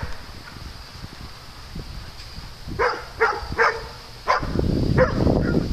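A dog barks three times in quick succession about three seconds in, then twice more near the end. A loud low rumbling noise comes in suddenly at about four seconds and carries on under the barks.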